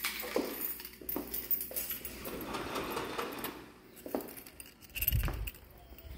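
Footsteps and small clicks, knocks and rattles of handling as someone passes through a sliding glass door onto a concrete patio, with a rough rustling stretch in the middle. About five seconds in there is a short low rumble of wind on the microphone.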